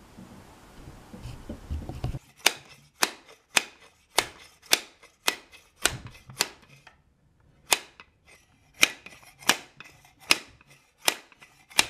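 Hammer blows driving the stuck gear train out of a roller-blind tubular motor's outer tube: about fifteen sharp knocks, roughly two a second, with a short pause midway. A low rumble of handling comes before the first blow.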